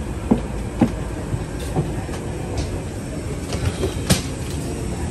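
Steady low rumble with scattered irregular knocks and clatter, from passengers' footsteps and rolling carry-on luggage crossing an airliner's door and jet bridge. The sharpest knock comes about four seconds in.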